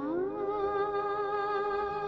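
Opening of a Hindi film song: a single melody note slides up and is then held with a slight vibrato over soft sustained accompaniment, just before the singing begins.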